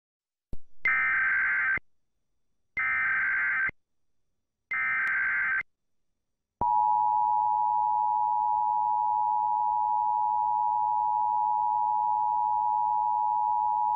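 Emergency Alert System test signal: three short bursts of the screechy digital SAME header data, each about a second long with a second's pause between, then the steady two-tone EAS attention signal, two tones sounded together near 850 and 960 Hz, beginning about six and a half seconds in.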